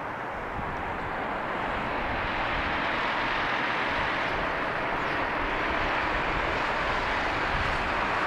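Airbus A380 airliner's four jet engines on final approach with landing gear down: a steady rushing jet noise that grows louder over the first few seconds as the aircraft comes closer.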